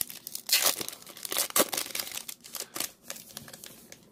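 Foil wrapper of a trading card pack being torn open and crinkled by hand, a run of irregular crackles that dies down after about three seconds.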